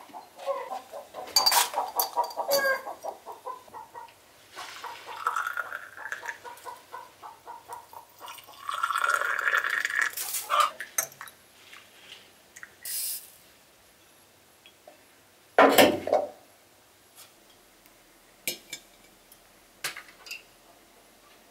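Chickens clucking, with a longer call about nine seconds in, over light clinks of glass tea cups in metal holders and saucers. A single louder knock comes about sixteen seconds in, followed by a few faint clinks of a tea glass being set on its saucer.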